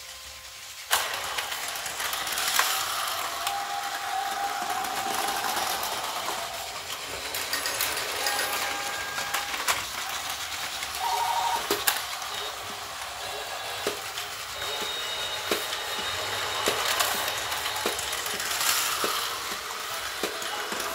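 Plarail toy train set running: a small battery motor whirring through plastic gears with frequent small clicks and rattles of the plastic mechanism, starting with a click about a second in, and a few short electronic beep tones.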